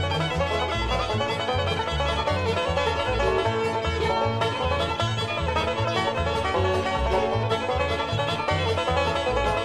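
Upbeat bluegrass-style background music with plucked strings and a steady bass beat.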